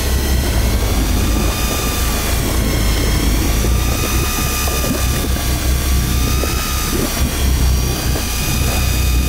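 Electric fishing reel's motor winding line in with a steady whine that wavers slightly in pitch, over a steady low rumble.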